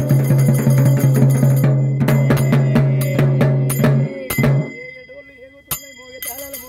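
Festival music with fast, driving drumming over a steady low drone, which breaks off about four and a half seconds in, leaving quieter voices.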